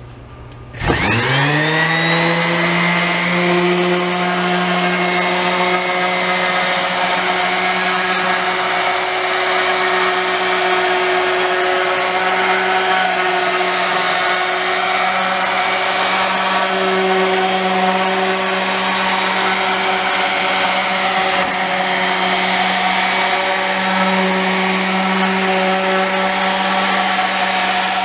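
DeWalt DWE6423K 5-inch random orbit sander switched on about a second in, its motor quickly rising in pitch up to speed. It then runs steadily while sanding bare pine boards.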